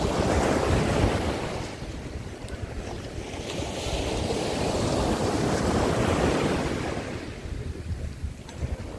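Black Sea surf breaking and washing up a sandy beach, swelling twice, with wind rumbling on the microphone.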